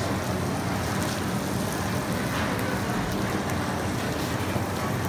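Chopped meat and corn tortillas sizzling on a hot flat-top steel griddle: a steady hiss with faint scattered crackles.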